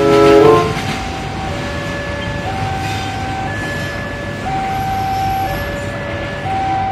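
Container freight train running away along the track with a steady rumble. A brief, loud rising tone sounds at the very start. After it, a slow two-note tone alternates high and low about once a second.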